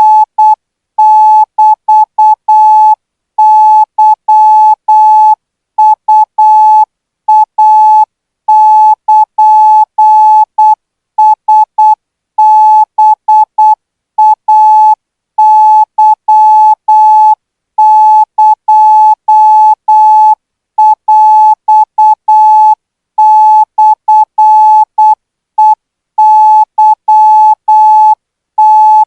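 Thai Morse code practice signal sent at 12 words per minute: a single steady beep keyed on and off in short dots and longer dashes, with short gaps between characters and longer gaps between words.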